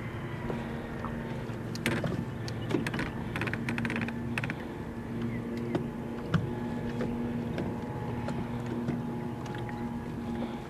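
Electric trolling motor on a bass boat humming steadily, holding the boat over a brush pile. Its whine drops a little in pitch in the first second. Scattered light clicks and knocks come over it, several in a cluster about two to four seconds in.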